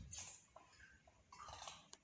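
A beagle biting and chewing a raw bitter gourd, with crisp crunches at the start and again about a second and a half in.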